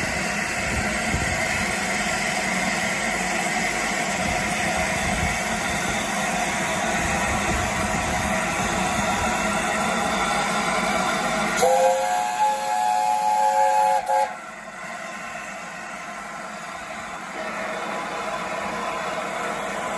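LNER A4 steam locomotive 60007 Sir Nigel Gresley hissing steam steadily; about twelve seconds in its chime whistle sounds once, several notes together held for about two and a half seconds, and the hiss then carries on a little quieter.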